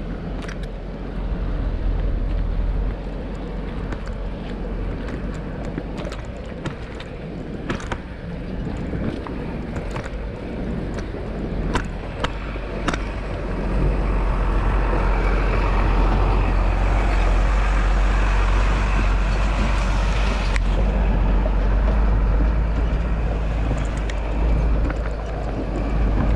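Bicycle ride over a rough, stony dirt road: wind buffeting the action camera's microphone as a steady low rumble, with scattered sharp rattles and knocks from the bike on the gravel. From about halfway through, a louder rushing hiss builds, then cuts off suddenly shortly before the end.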